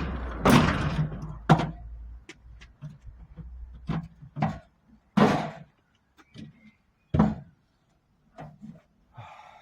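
Scrap being shoved and rearranged in the back of a loaded truck: a string of irregular clunks and bangs, several of them sharp and loud, over a low rumble that fades out after the first couple of seconds.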